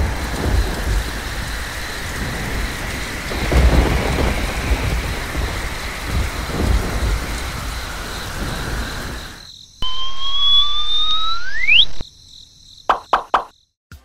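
Rain and thunder sound effect: a steady downpour with rumbling thunder that swells about 4 s in and again near 6.5 s, then stops abruptly at about 9.5 s. It is followed by a loud rising whistle-like tone lasting about two seconds, and then a few short pops.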